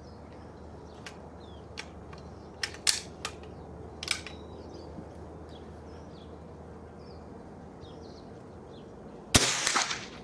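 A single report from a Winchester 67A .22LR rifle firing a Swartklip high-velocity round, a sharp crack with a short echo about nine seconds in. It follows a few light clicks, and birds chirp faintly throughout.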